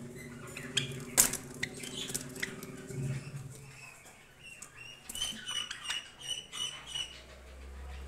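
Silver Java sparrows in a wire cage: a scatter of sharp taps and scratches as they shuffle about, over a low hum that stops about three seconds in, then a quick run of short, high chirps from about five seconds in.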